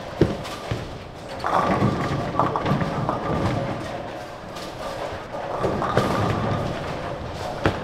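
A bowling ball lands on the lane with a thud and rolls down it with a long rumble, while balls roll on neighbouring lanes of the busy bowling centre. A sharp crack comes near the end.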